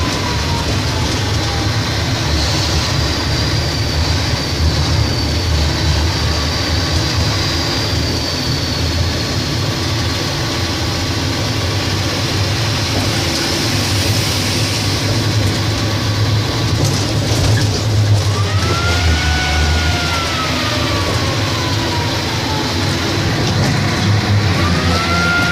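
Heavy diesel engine of a mining dump truck running steadily under way, heard from the truck's open deck beside the cab. A whine glides up and then down in pitch a few times over the engine, most clearly in the second half.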